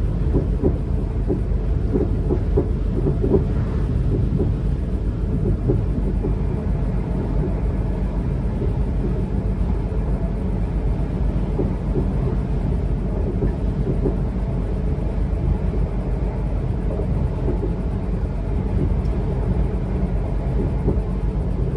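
Class 444 Siemens Desiro electric multiple unit running along the line: a steady low rumble of wheels on rail, with frequent small knocks and rattles that are thickest in the first few seconds.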